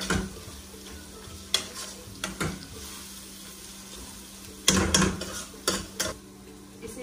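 Onions, ginger-garlic paste and turmeric sizzling in hot oil in a wok-style pan, frying off the raw turmeric smell for dal. A spatula stirs and scrapes against the pan in several sharp clatters, loudest about five seconds in.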